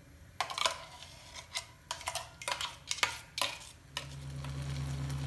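A metal spoon scraping and clinking against a steel mixer jar as thick masala paste is scooped out into a kadai, in a run of short, uneven strokes. About four seconds in the scraping stops and a steady low hum takes over.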